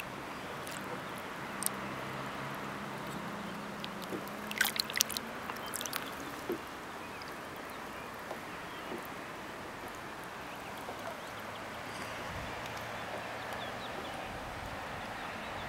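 Water splashing in a short flurry about four and a half seconds in, as a small amberjack is let go by hand at the side of a kayak, over a steady wash of water.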